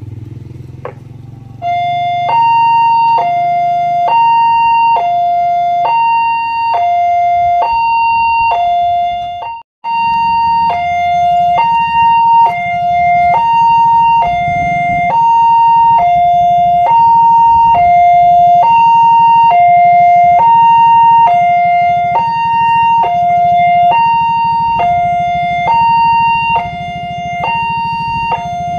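Electronic two-tone alarm of a railway level crossing, alternating steadily between a high and a low tone: the warning that a train is approaching and the barriers are down. It breaks off for a moment about ten seconds in, over a low rumble.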